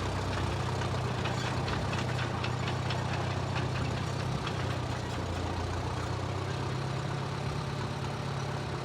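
Engine of a 1934 Caterpillar crawler bulldozer running at a steady, even speed, with faint clicks through the first half.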